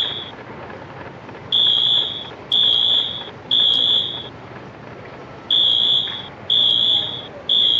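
Building fire alarm horns sounding the evacuation signal: loud, high beeps in groups of three with a pause between groups, echoing through a large hall.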